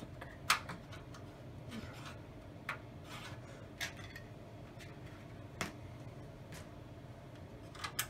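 Light clicks and scrapes of a PC case's rear expansion-slot bracket being handled and fitted into place, the sharpest about half a second in, over a low steady hum.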